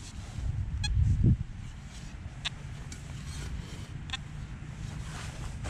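Metal-bladed shovel digging into farm-field soil, with a louder scrape or thud of the blade about a second in and a few sharp clicks of grit or stones on metal. A steady low rumble runs underneath.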